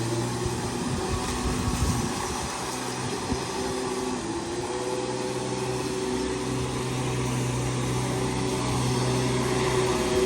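Lawn mower running steadily with an even motor hum, its pitch dipping briefly about three and a half seconds in.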